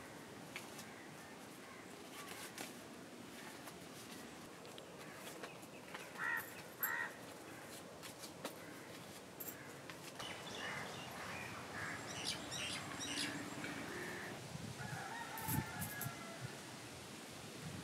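Coins and paper banknotes being handled and sorted on a table, with small clinks and rustles, mostly in the second half. Two short bird calls sound about six and seven seconds in.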